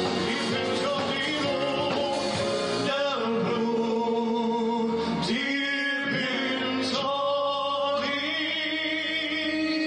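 Live band music with a male singer. From about three seconds in, the voice holds long notes with vibrato.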